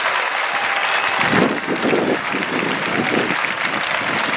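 Crowd applauding, the sound growing fuller about a second in.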